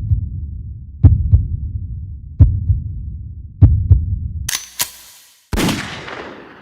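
Heartbeat sound effect: deep double thumps (lub-dub) repeating slowly, about every 1.3 seconds, four beats in all. About two-thirds of the way in, a sharp crash cuts in, followed by a longer noisy burst that fades away.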